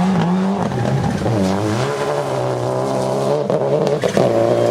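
2008 Subaru WRX STi rally car's turbocharged flat-four engine revving hard under load as the car slides on dirt. Its pitch drops and climbs back between one and two seconds in, and a few sharp cracks come near the end before it holds steady.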